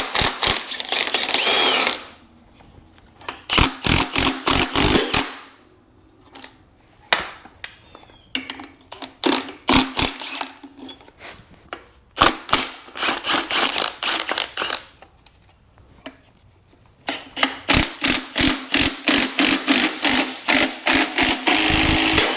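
Cordless impact wrench hammering in several bursts of a few seconds each, the longest near the end, as it works rusted front-suspension nuts and bolts on an old Chevrolet Corvair. Between bursts there are short lulls with lighter clanks.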